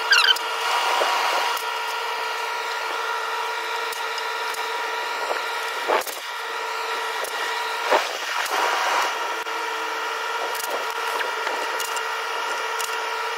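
Cordless power tool undoing the engine's sump (oil pan) bolts in short runs: a whirring burst in the first second or so and another, with clicks, about eight seconds in, over a steady background hum.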